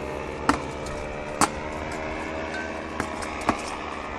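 Unsharpened iron weapons striking iron armour in a reenactment fight: four sharp, ringing metallic clangs, the loudest about a second and a half in, over a steady hum.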